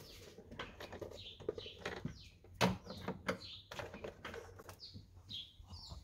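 Small birds chirping in short calls that fall in pitch, over scattered plastic clicks and rattles as wiring connectors are handled and plugged into a truck door panel; the sharpest click comes about halfway through.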